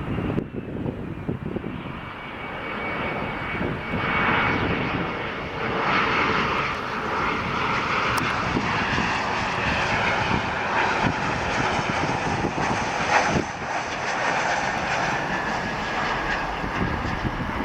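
Twin rear-mounted turbofan engines of a United Express CRJ-700 regional jet passing, a high steady whine over a rushing jet noise that grows louder about four seconds in. The whine drops slightly in pitch near the end.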